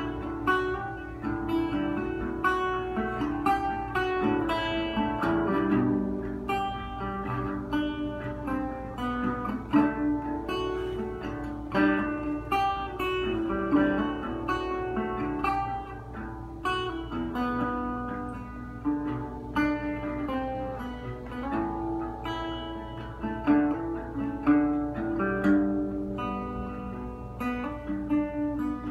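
National metal-bodied resonator guitar played solo, a continuous run of picked notes and chords.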